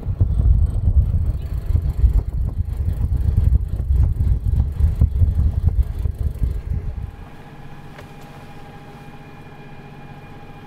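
Wind buffeting the microphone on a moving sailing yacht's bow for about seven seconds. After a sudden drop, the yacht's engine drones steadily with a held tone.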